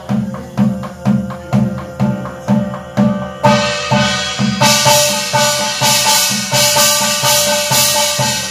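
Korean barrel drum (buk) beaten in a steady beat of about two strokes a second, under a shaman's chanted scripture reading (gyeong) held on a few steady notes. About four and a half seconds in, a bright, sustained shimmer joins over the drumming.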